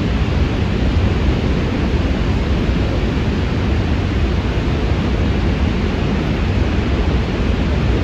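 Horseshoe Falls at Niagara: a loud, steady rush of falling water with a deep rumble underneath, unbroken throughout.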